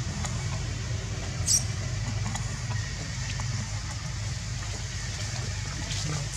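A steady low rumble like an engine running, with a brief high squeak about a second and a half in.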